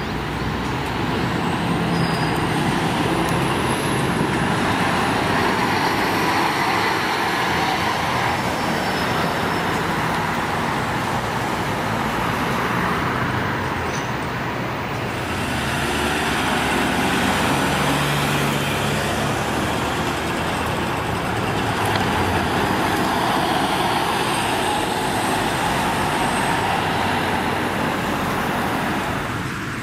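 Road traffic with route buses and cars driving past and pulling away: continuous engine and tyre noise, the engine hum swelling and fading as vehicles move off.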